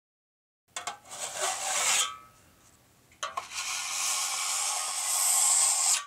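Sound effects for an animated logo: a rough scraping burst lasting about a second, then a sharp click and a longer rasping swoosh that builds and cuts off suddenly.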